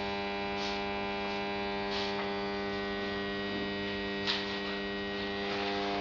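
Steady electrical mains hum, a stack of even tones that does not change, with a few faint brief rustles, the clearest just after four seconds.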